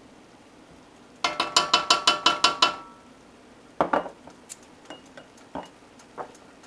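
About ten quick, ringing taps of kitchenware against a stainless steel sauté pan, as tomato paste is knocked out of a small dish into it. A second or so later comes a louder clatter, then a few light clicks of a utensil in the pan.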